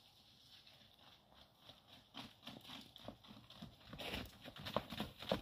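Footfalls of baby rhinos running and charging at each other: irregular thuds that start faint about two seconds in and grow louder near the end.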